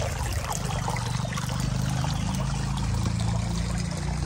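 Steady trickle of running water, with a low steady rumble underneath.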